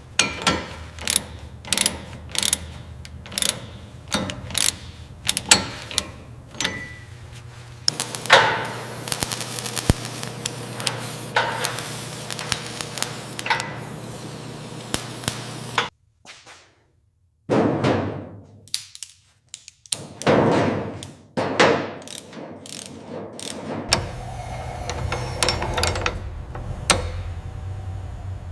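Mechanical workshop sounds: a run of sharp ratchet-like metal clicks about two a second, then a denser clattering stretch. After that it cuts out briefly, and a few sweeping strokes follow, then more clicks over a low hum.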